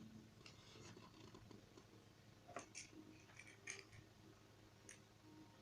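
Faint, scattered small clicks and taps from beads being handled and dropped into a bowl of shampoo-and-salt slime.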